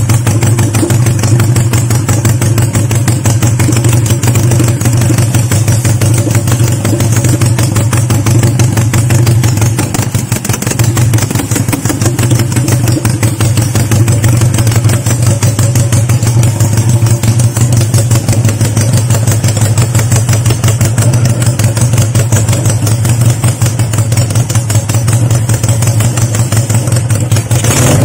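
Honda CB175's air-cooled parallel-twin four-stroke engine idling steadily while warming up, with a brief dip in level about ten seconds in.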